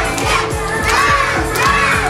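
A group of children shouting and cheering together, with clapping, over background music.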